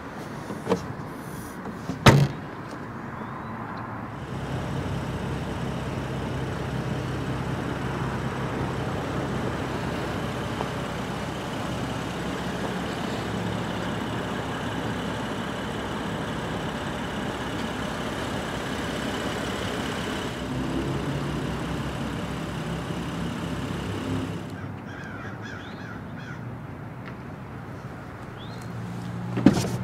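The BMW M235i's trunk lid pulled down and shut with a loud thump about two seconds in, followed by a long steady rumble. Crows caw faintly near the end, and a door latch clicks as the driver's door is opened just before the end.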